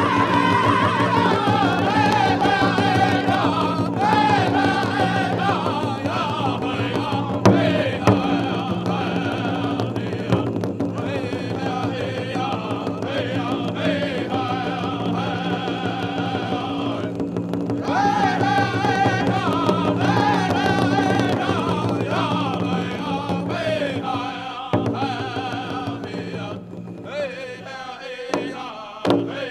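Powwow drum group singing a men's prairie chicken dance song, high wavering voices over a steady big drum. Near the end the singing drops away and a few separate loud drum beats sound.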